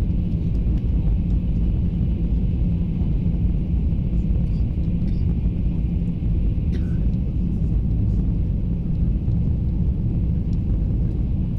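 Steady low rumble of a Taiwan High Speed Rail 700T train running, heard from inside the passenger car.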